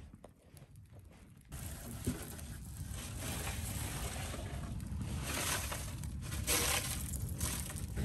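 Campfire of dry dead wood and brush burning, with scattered crackles over a rushing noise that comes in about a second and a half in and slowly builds as the flames grow.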